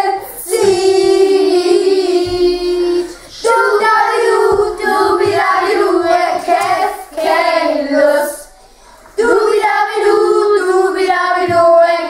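A group of children singing a song together in Eastphalian Low German, with a brief break about three seconds in and a pause of about a second later on before the singing resumes.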